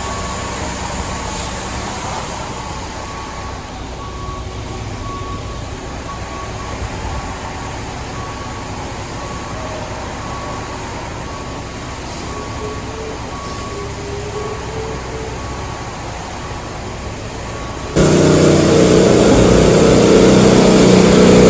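Engine of heavy machinery running steadily, with a faint beep repeating at an even pace. About three-quarters of the way in, a cut brings a louder engine close by.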